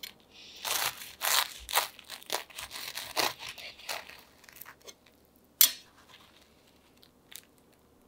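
Food being handled in a kitchen: a dense run of short, sharp crunching strokes for about four seconds, then one sharp click about five and a half seconds in.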